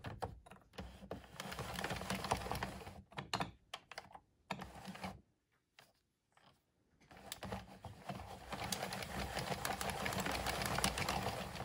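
Plastic 22-needle circular knitting machine being cranked round, its needles and carriage making a rapid run of clicks. The clicking breaks off about three seconds in, goes quiet for a few seconds, and starts again about seven seconds in.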